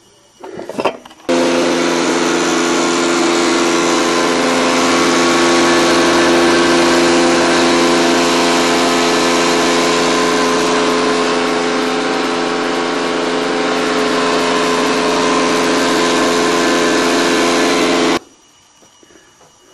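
A 12-inch Belsaw planer/molder running, a loud steady machine noise with a hum of several steady tones, as its molding cutter shapes a board. A few brief knocks come first; the machine noise starts suddenly about a second in and cuts off suddenly near the end.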